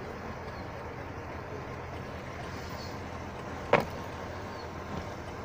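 A single sharp metallic clunk from a car's engine bay, worked on by hand under the open bonnet, about two-thirds of the way in, over a steady low rumble.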